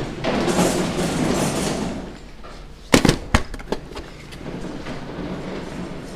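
Handling and rubbing noise from a body-worn camera jostled as its wearer moves, with a quick cluster of sharp knocks and clicks about three seconds in.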